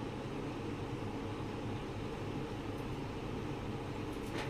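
Steady low hum and hiss of background room noise, with no music playing.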